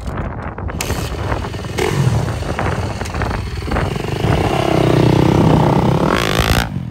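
Dirt bike engines running and revving. The loudest engine note is held high through the second half, then drops in pitch near the end.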